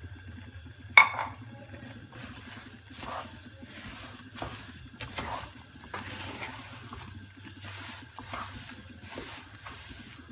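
Wooden spatula stirring a thick, grainy mix of roasted gram flour, dry fruit and sugar in a metal pan, scraping around the pan in repeated strokes. There is a sharp clack against the pan about a second in.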